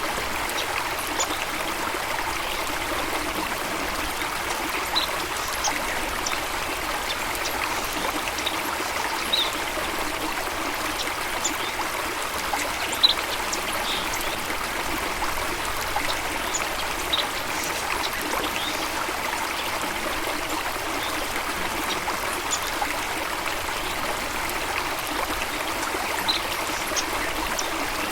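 Steady rushing of flowing water, with short, faint bird chirps scattered over it.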